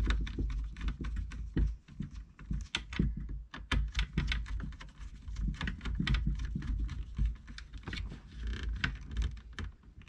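Small screwdriver working the terminal screws of a plastic block connector while wires are pushed into it, giving irregular light clicks and taps of metal on plastic, with dull handling bumps.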